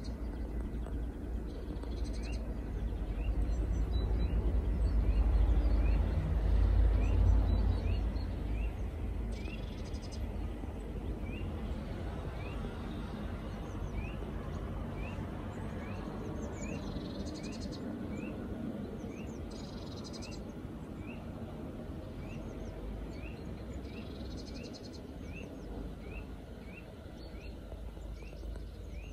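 Outdoor ambience at dawn: a low rumble that swells a few seconds in and then eases, under a bird giving a short rising chirp over and over, about every two-thirds of a second, with a few higher bird calls now and then.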